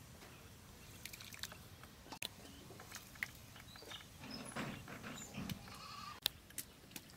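Pieces of goat intestine dropped and handled in water in a cooking pot, with scattered soft clicks and small splashes. A goat bleats faintly about four to five and a half seconds in.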